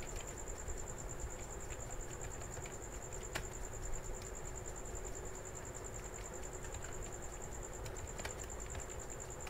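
Faint computer keyboard typing: scattered soft key clicks at irregular times, over a steady high-pitched whine and a low background hum.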